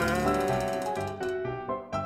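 Background music: a tune of short pitched notes.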